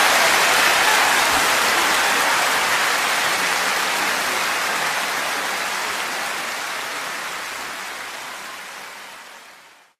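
A steady rushing noise with no tones in it, fading gradually away and cutting to silence near the end.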